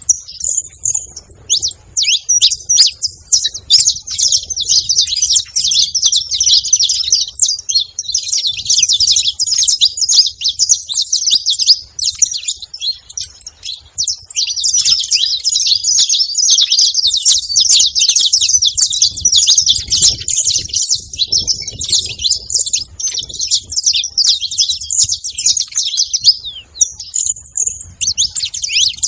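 Several saffron finches chirping and calling at once, a dense, continuous chatter of quick high notes that thins briefly about halfway through.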